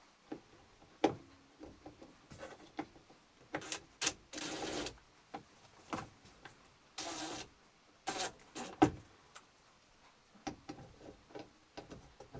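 Screws being driven through a thermostat base into thin wall paneling: scattered clicks and scrapes, with two short rasping bursts of about half a second each, near the middle.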